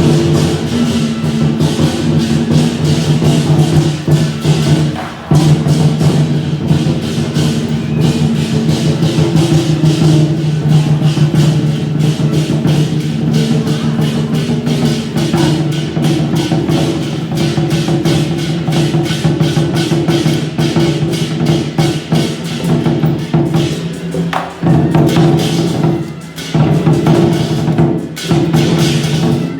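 Taiwanese temple procession music: fast, dense beating of drums, gongs and cymbals over sustained pitched tones, with short breaks about five seconds in and again near the end.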